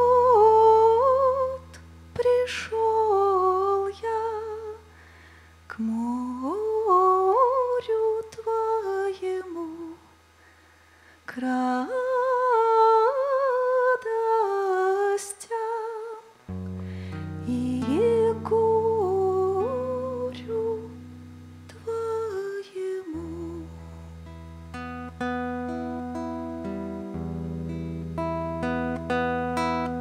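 A woman's wordless vocal melody over long, held bass guitar notes. Picked acoustic guitar notes join about halfway through, and the last seven seconds or so are bass and acoustic guitar alone: the instrumental introduction before the first sung verse.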